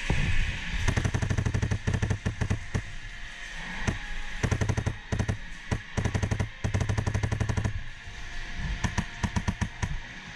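Polarstar HPA-powered airsoft rifle firing full-auto, several quick strings of rapid shots with short pauses between them.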